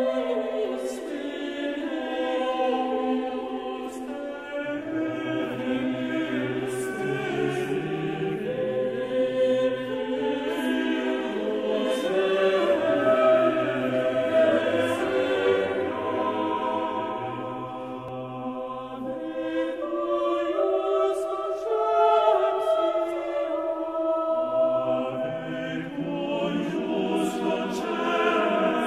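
Background music: a choir singing slow sacred music, several voices together holding long notes that change in steps.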